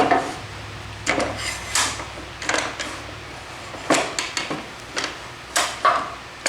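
Scattered wooden knocks and short scrapes as a test piece of wood and the miter gauge are slid across the table saw's top, with a low steady hum underneath that fades near the end.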